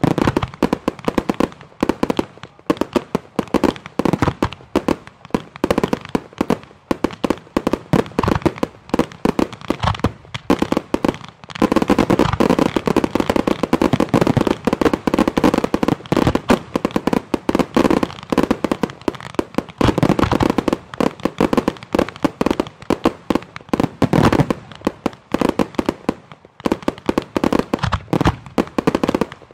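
Professional closing fireworks display: a dense, unbroken barrage of rapid bangs from firing batteries and bursting shells, heaviest through the middle stretch.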